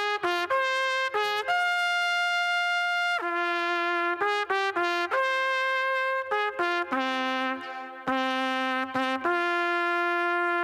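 Solo trumpet playing a melody of short detached notes and a few held notes, settling about nine seconds in on a long, steady low note.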